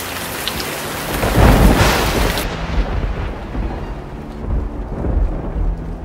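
Thunderstorm: a steady hiss of heavy rain with a loud rumble of thunder about a second and a half in and a second rumble near the end. The rain hiss thins out after about two and a half seconds.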